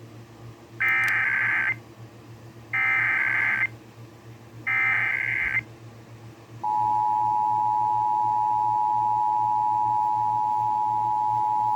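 Emergency Alert System SAME header: three bursts of screeching digital data tones, each about a second long and about a second apart. About 6.5 seconds in, the steady EAS two-tone attention signal (853 and 960 Hz) begins and holds; it marks the start of an alert, here a Required Monthly Test.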